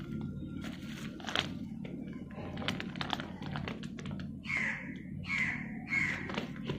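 Clear plastic grow bag crinkling and rustling, with small clicks and taps, as it is handled and squeezed with hot salt water inside to soak an infested oyster mushroom block. In the second half, three short falling chirps sound about two-thirds of a second apart.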